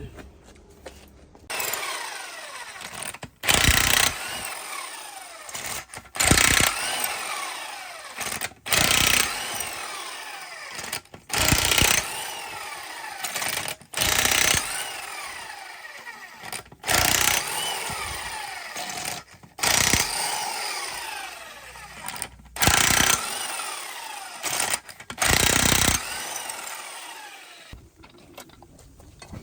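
A power tool run in about ten short bursts, one every couple of seconds. After each burst comes a falling whine as it spins down.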